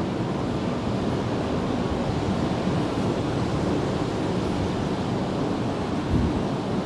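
Steady, even rushing noise with no breaks, heaviest in the low end.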